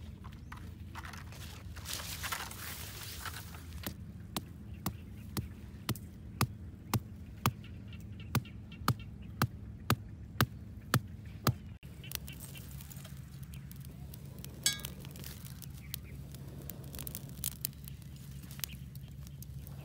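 A wooden stake being pounded into the ground: a run of about fifteen sharp knocks, roughly two a second, starting a few seconds in and stopping around the middle, over a steady low hum.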